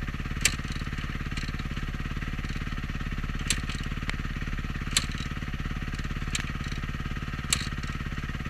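Dirt bike engine idling steadily, with a few sharp clicks or knocks every second or two.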